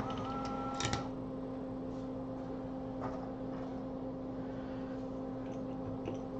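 Steady electrical hum from workbench equipment. In the first second there is a brief higher tone and a few small clicks.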